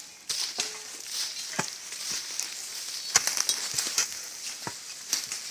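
Burning forest undergrowth crackling and hissing, with a few louder snaps, as a hand tool beats and scrapes at the burning brush.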